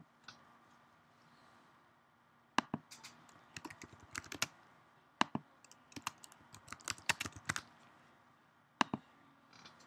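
Typing on a computer keyboard: irregular runs of sharp key clicks for about five seconds, then one lone click near the end.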